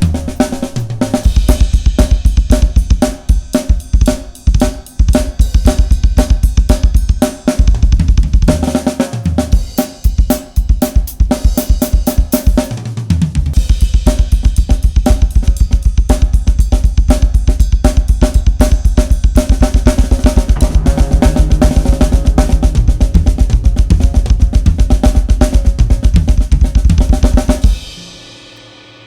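Pacific Drums 805 series drum kit with a Mapex snare and Sabian cymbals played hard and fast over a backing track: dense snare, bass drum and cymbal strokes, with a short break around the twelfth second. The playing stops abruptly near the end, leaving the cymbals ringing out.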